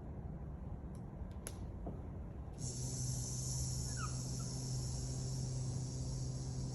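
A man's voice holding a long buzzing "zzzz", the sound of the English letter Z, starting about two and a half seconds in and lasting over four seconds at one steady pitch.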